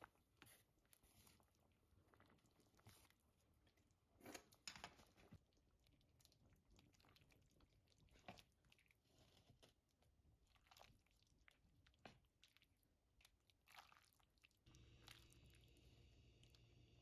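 Near silence with faint, scattered taps and scrapes of utensils against the pan and serving bowl as beef and broth are dished up. A low steady hum starts near the end.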